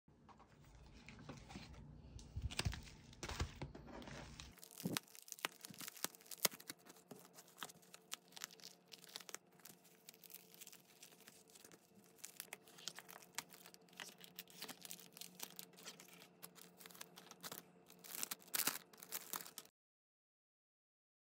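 Metallic bubble mailer being handled and opened: irregular crinkling, crackling and tearing of its plastic film. It cuts off abruptly near the end.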